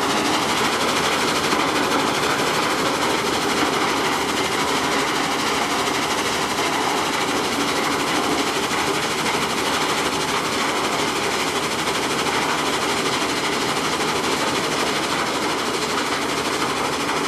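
Sand-making and sand-washing plant machinery running, with stone and sand being processed: a loud, steady, dense mechanical clatter.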